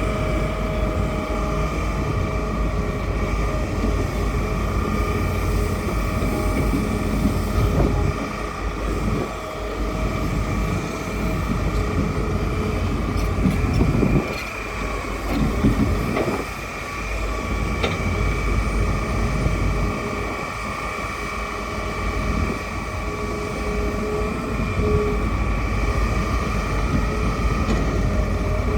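Hitachi excavator working: its engine runs steadily with a low rumble and a steady high whine, the level dipping and rising again a few times, with a few knocks around the middle.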